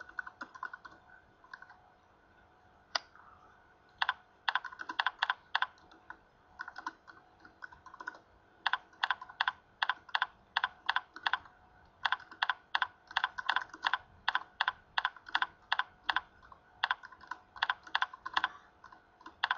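Typing on a computer keyboard: quick runs of keystrokes with short pauses, after a few scattered clicks and a single click about three seconds in.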